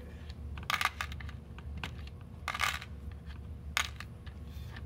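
Metal pins of a Purdue Pegboard clinking as they are pulled out of the board's holes and dropped back into its cups, a handful of separate clinks about a second apart.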